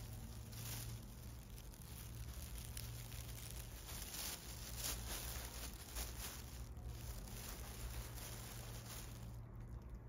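Thin black plastic bin bag crinkling and rustling irregularly as a kitten climbs and burrows inside it, quieter near the end.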